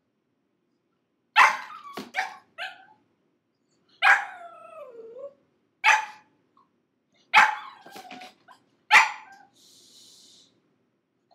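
Six-month-old pug puppy barking and yelping in loud, sharp outbursts every second or two, some calls trailing off in a falling whine. It is protesting being shut in its crate.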